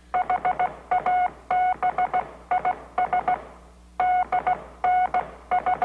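Morse code beeps, a single steady tone keyed in short and long pulses spelling out SOS (dot-dot-dot, dash-dash-dash, dot-dot-dot). The signal is sent twice, with a pause of about a second and a half between.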